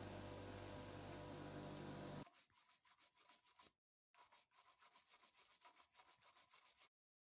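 An electric grinder motor running with a steady hum, stopping abruptly about two seconds in. Then faint, irregular scratching strokes of a steel-bristled toothbrush scrubbing rust off a hammer head, with a short pause midway.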